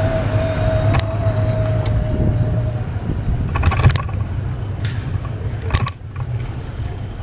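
Steady low rumble of riding a bicycle along town streets and brick paving, with wind on the microphone and a few sharp rattles and clicks, the loudest cluster about four seconds in. A steady whine fades out about three seconds in.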